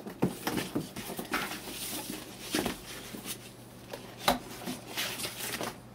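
Plastic anti-static mat rustling and flapping as it is spread out, with scattered clicks and knocks of a laptop being handled on a wooden desk. A sharp knock about four seconds in is the loudest.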